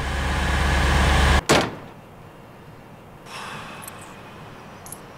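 A rising car-engine sound cuts off abruptly, and a car door slams shut once about a second and a half in. Quieter outdoor ambience follows, with a light rustle and a few faint clicks.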